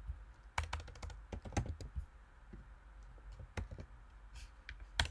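Keystrokes and clicks on a computer keyboard and mouse: irregular sharp taps in small bursts during the first two seconds, then only a few isolated clicks.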